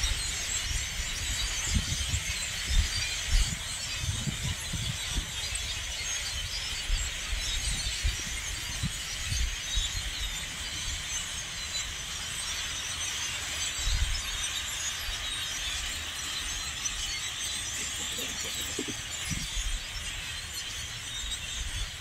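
A huge flock of blackbirds calling all at once: a continuous din of high, squeaky chatter, with irregular low thumps underneath.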